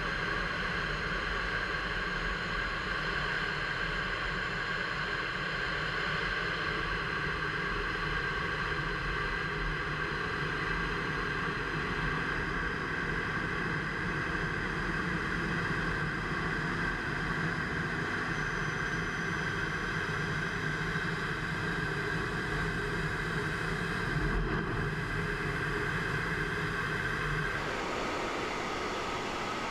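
Steady cockpit noise inside an F-15 fighter in flight: a constant rush of air with a high engine whine and several steady tones over it. The noise changes character near the end.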